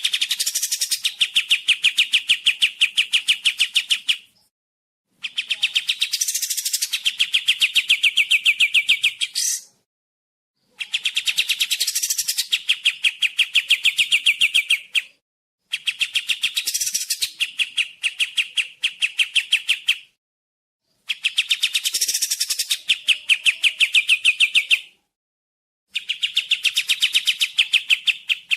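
Song of the kapas tembak songbird played as a looped recording: a fast, high trill of evenly repeated notes lasting about four seconds, broken by short silences and repeated about six times.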